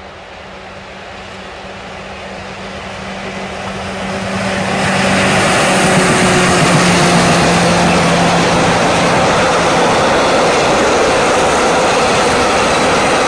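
Diesel locomotive approaching and passing close by with a steady engine note that drops in pitch as it goes past, about five seconds in. Then a train of loaded tank wagons rolls by with a loud, even rumble of wheels on rail.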